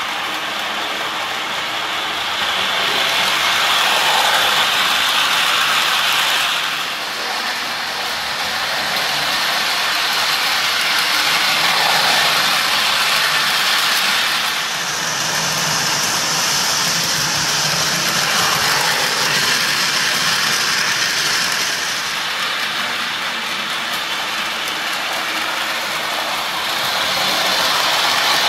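A 1961 Lionel Alco toy diesel locomotive running around its track with its cars in tow, making a steady mechanical running noise that swells and eases as the train circles the loop.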